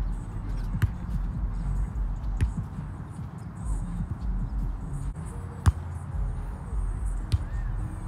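Hands and forearms striking a volleyball in a rally, four sharp hits a second or two apart, the loudest a little past halfway, over a low rumble.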